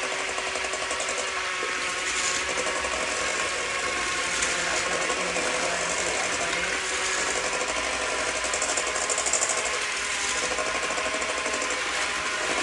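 Handheld immersion blender motor running steadily, its blade beating raw eggs in a stainless steel bowl.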